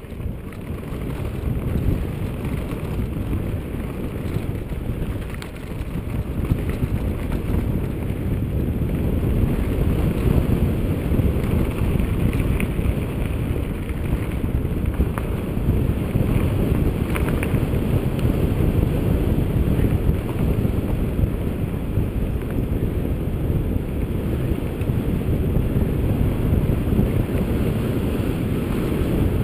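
Wind buffeting the camera's microphone and a mountain bike's tyres rumbling over a dirt singletrack at speed, a dense low rumble that rises in the first couple of seconds and then holds, with a few faint ticks of rattle partway through.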